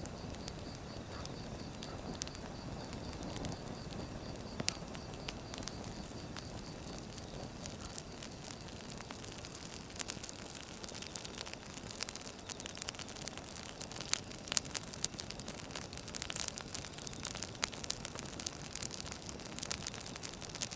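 Wood fire crackling: burning logs giving a steady hiss with frequent sharp pops and snaps, which come thicker and louder in the second half.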